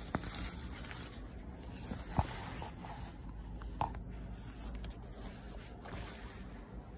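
Glossy nylon shell of a Moncler down jacket rustling and rubbing as it is handled, with a few sharp clicks, the loudest about two seconds in.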